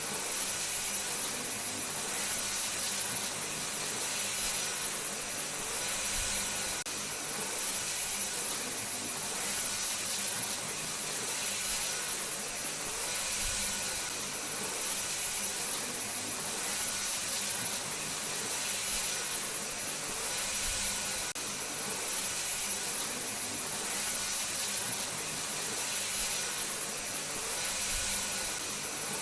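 Vacuum cleaner running steadily: a continuous whooshing motor noise with a thin high whine, swelling and easing slightly every few seconds.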